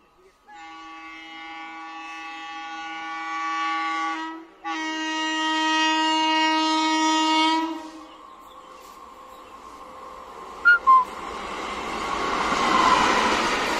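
WAP-4 electric locomotive sounding two long horn blasts, each growing louder, then the rising rush of the express approaching at speed on the rails. Two brief, sharp high pips cut in about ten to eleven seconds in.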